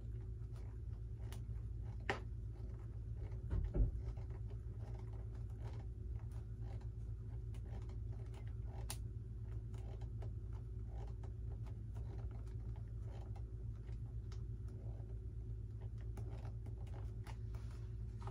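Faint, irregular clicks and scratches of hands working on a foam RC model airplane's tail, with a couple of sharper knocks about two and four seconds in, over a steady low hum.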